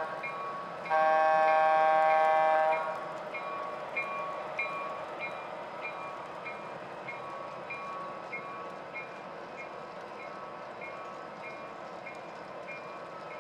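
The model diesel switcher's sound system sounds a horn blast of about two seconds, starting about a second in. The locomotive bell then rings steadily, about two strokes a second, over the rumble of the train rolling on the track.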